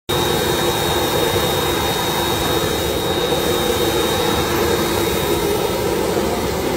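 Private jet's turbine engines running on the ground: a steady loud roar with a thin high whine that fades out near the end.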